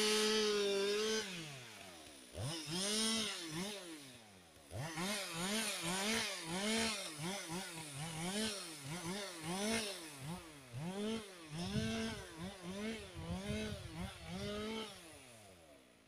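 Two-stroke chainsaw held at high revs, dropping back, then revved up and down in a quick run of short throttle bursts, more than one a second, before falling away near the end.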